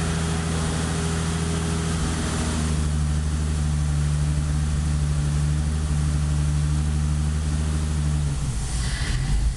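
BMW M20B28 2.8-litre inline-six, running on M50 engine management, idling steadily on its first startup after the build. The idle settles slightly higher about two and a half seconds in. About eight seconds in, the steady engine note breaks up into a rougher, noisier sound.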